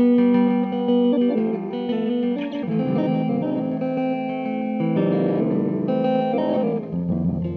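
1976 Gibson ES-335 electric guitar played through a Red Panda Particle granular delay pedal: held notes and chords with the pedal's granular repeats layered over them, the pitch changing every second or two.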